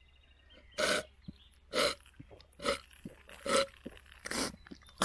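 A man snorting liquid up his nose from a glass: five sharp snorts, about one a second.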